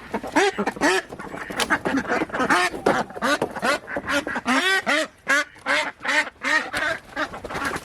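A pen of domestic ducks quacking, many short quacks overlapping in quick succession.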